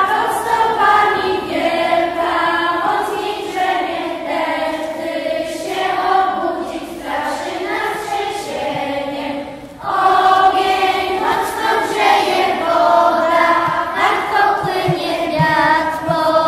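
Group of children singing a song together, holding long notes, with a short break about ten seconds in.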